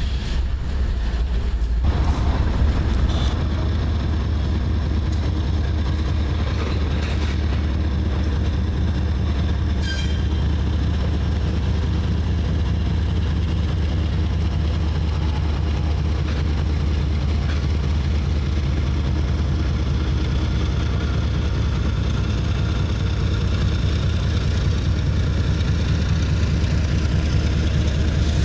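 CSX diesel freight locomotives passing, their engines giving a steady low throbbing rumble. In the first two seconds the freight cars are rolling by, before the locomotive sound takes over.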